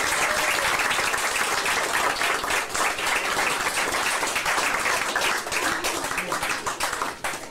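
Many people applauding: a steady, dense clapping from a crowd of guests that thins out near the end.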